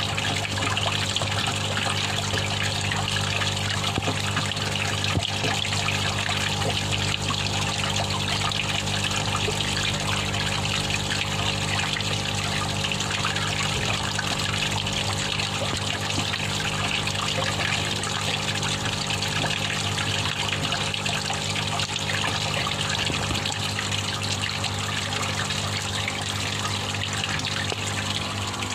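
Water trickling and splashing steadily into a fish tank, over a low steady hum.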